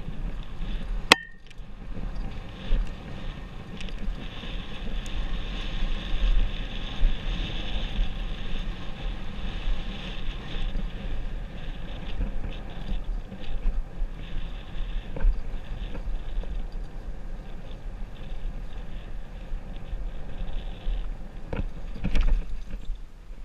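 Specialized Enduro mountain bike descending a rough dirt singletrack: wind buffeting the helmet camera's microphone over the steady rumble and rattle of tyres and bike on the ground. A single sharp click comes about a second in, and a couple of knocks near the end.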